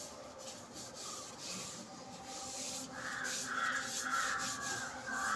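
A hand rubbing wet wood ash over the outside of a metal cooking pot, a soft repeated rasping that grows louder in the second half. The ash coating is put on so soot from the wood fire will scrub off easily.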